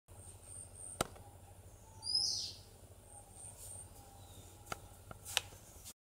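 Oriental magpie-robin singing: a loud clear whistle sliding downward about two seconds in, with runs of thin, very high repeated notes before and after it. A few sharp clicks sound through it, over a low steady hum.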